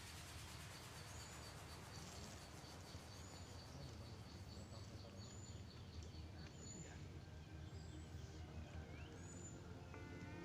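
Faint outdoor ambience: a bird giving a short high chirp every second or two, with a fast, even ticking that stops about seven seconds in, over a low steady hum.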